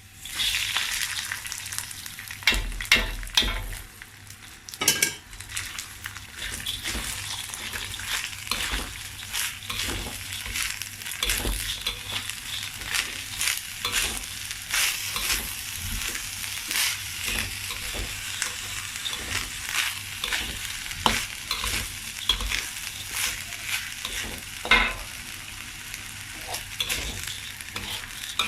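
Rice sizzling in hot oil in a wok as it is stir-fried with ginger and garlic, the hiss starting suddenly as the rice goes in. A spatula scrapes and knocks against the wok throughout, with a few louder knocks about three and five seconds in and near the end.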